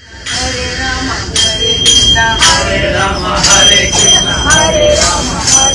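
Voices singing a Hindu devotional bhajan, with small hand cymbals (manjira) struck and ringing.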